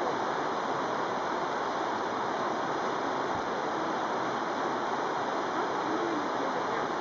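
Swift, shallow river rushing steadily over rocks and riffles.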